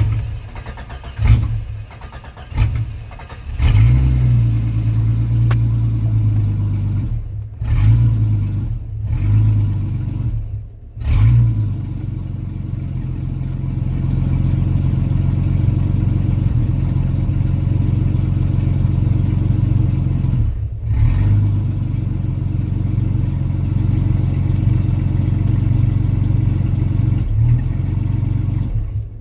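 Renix Jeep Cherokee XJ engine turning over unevenly for a few seconds, then running steadily, with brief drops in its sound several times; the car has a no-start fault traced to its ECU connector wires.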